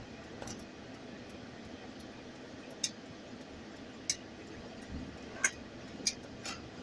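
Steady hum of a car's engine and tyres heard inside the cabin while driving slowly, with several sharp clicks or clinks at uneven intervals in the second half.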